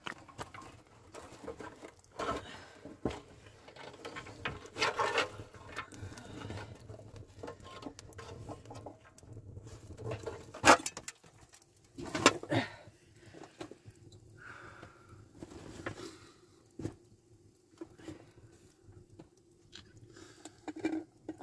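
Small wood fire crackling under a pot while dry twigs are handled and pushed into it, giving scattered clicks, rustles and knocks, with one sharp knock partway through.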